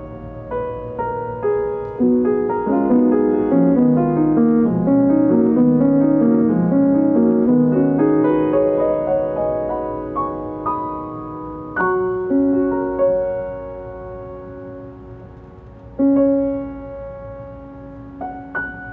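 Grand piano played solo: a flowing run of broken chords through the first half, thinning out to a few slower chords struck about every few seconds and left to ring and fade.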